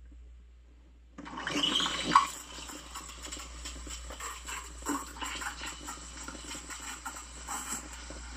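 Saachi espresso machine's steam wand steaming cold milk in a stainless steel pitcher: the steam comes on about a second in with a loud hissing surge, then settles into a steady hiss with irregular gurgles and sputters as air is drawn into the milk to foam it.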